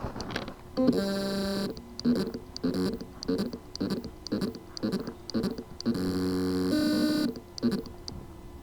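Hard drive spindle motor struggling to spin up: a buzzing whir, then a rhythmic stutter about three times a second, another buzzing whir and a faint hum. The motor never reaches full speed, the symptom of loose motor contacts on the drive's circuit board.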